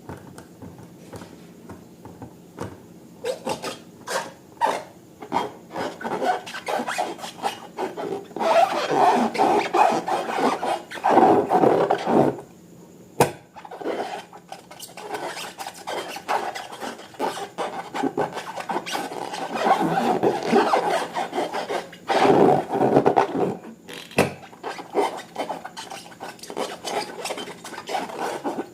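Slime being worked by hand and tool, with irregular rubbing and scraping strokes and small clicks, denser and louder in two stretches.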